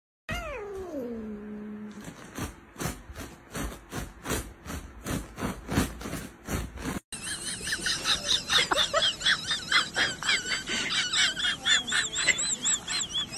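Domestic cats vocalizing: a meow that slides down in pitch and holds low, then short sharp sounds about twice a second, then a fast run of high, chirping calls from about seven seconds in.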